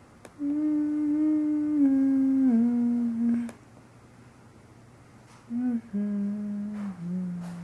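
A person humming long held notes that step down in pitch: one phrase of about three seconds, then after a pause a short note and a second, lower phrase that runs to the end.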